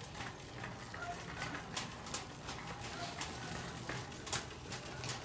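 Wire shopping cart being pushed along: scattered clicks and rattles over a steady low hum.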